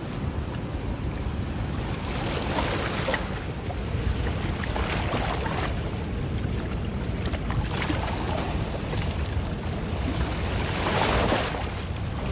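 Wind rumbling on the microphone over moving water, with several brief surges of splashing noise.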